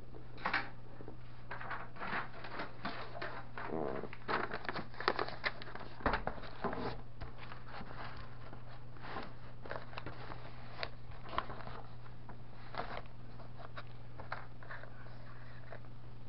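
Plastic packaging bags crinkling and rustling, with scattered light clicks and taps as small wire cables with plastic connectors are handled and laid out on a paper pad, over a steady low hum.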